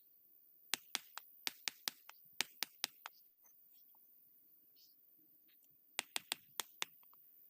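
Sharp clacks of concrete paving blocks being knocked into place: a quick run of about ten, then a pause, then five more near the end.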